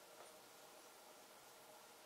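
Near silence: room tone with a faint steady hiss.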